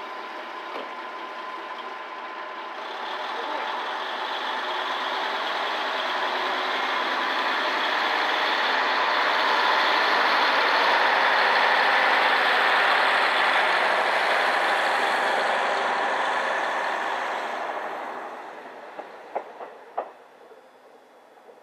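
Diesel railcar's engine idling at the platform, then getting louder as the train pulls out and passes, and fading away as it leaves. A few sharp clicks near the end.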